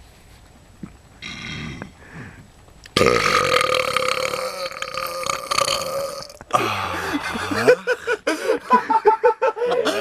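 A person belching. A long, loud burp begins about three seconds in and lasts about three seconds, followed by a run of shorter burps that waver in pitch.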